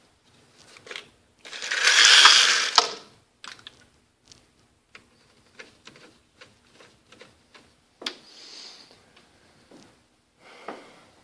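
Horizontal window mini blinds being lowered: a loud rattling rush of slats about two seconds in, then a run of small clicks and ticks from the slats and the cord mechanism, and a shorter, softer rattle later on.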